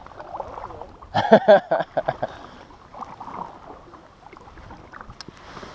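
Double-bladed kayak paddle stroking through calm river water, with a brief burst of a voice about a second in.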